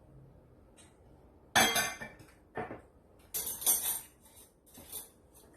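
Dishes and cutlery clinking and clattering as tableware is handled: a few separate clinks, the loudest about one and a half seconds in and a cluster around three and a half seconds in.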